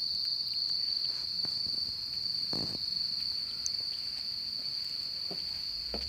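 Loud chorus of insects calling at dusk: one steady, unbroken high-pitched drone, with a few soft low thumps underneath.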